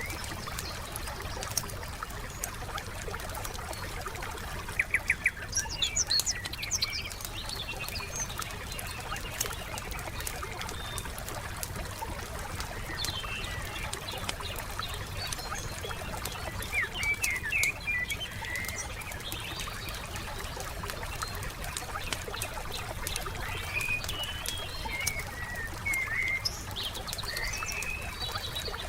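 Wood campfire crackling with steady small pops, and songbirds chirping in short bursts: a quick run of chirps about five seconds in, more around the middle, and a longer stretch of song near the end.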